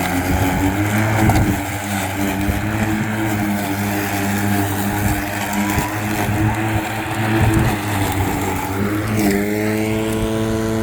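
Ozito 36V (2×18V) brushless cordless lawn mower running steadily while cutting grass, with a hum from the motor and blade. Its pitch rises slightly near the end.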